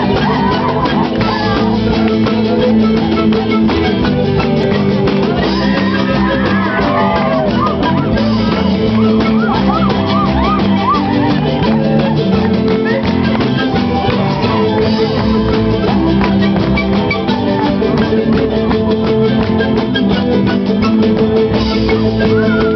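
Live Andean folk band playing an instrumental passage over a PA: panpipes carry a wavering melody over strummed acoustic guitars, electric guitar and a steady beat.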